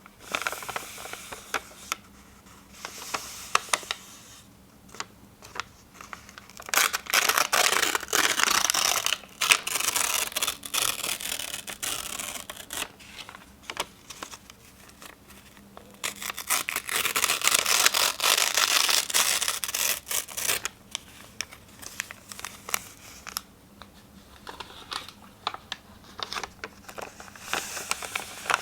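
Sheets of paper being torn by hand, in two long, loud tearing passages about a third of the way in and past the middle. Softer crinkling and handling of the paper comes between them.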